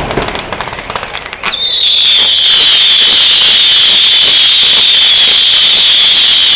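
Fireworks going off at close range. Crackling and bangs at the start give way, about a second and a half in, to a loud, steady high-pitched hiss that holds on.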